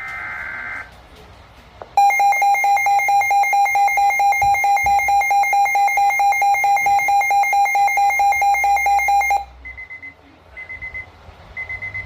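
Emergency weather-alert signalling tones. The last of the warbling digital header bursts ends near the start, and a rapidly pulsing alarm tone begins about two seconds in and runs for about seven seconds. Short high beeps follow about once a second.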